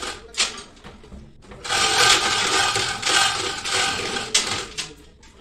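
Chain hoist's chain clattering through the block as it is hauled, lowering a transformer's core and coils into its round tank: a short rattle near the start, then a longer run of clatter for about three seconds.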